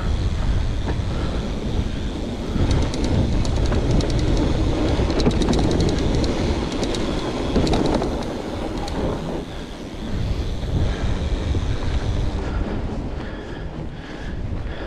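Fat bike rolling along a forest trail: tyres rumbling over the ground and wind on the microphone. A stretch of fast rattling clicks comes from a few seconds in until about the middle.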